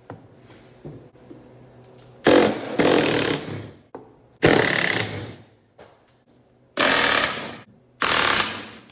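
Power tool run in four bursts of about a second each, backing out 13 mm bolts to free the tractor's plastic footstep.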